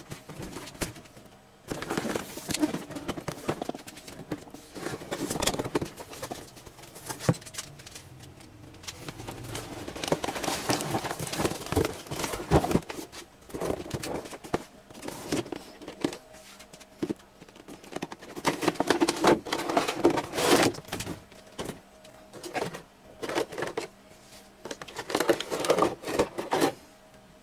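Hands handling a boxed Sentinel action figure's plastic parts and its packaging tray: irregular rustling and crinkling with light plastic clicks and knocks.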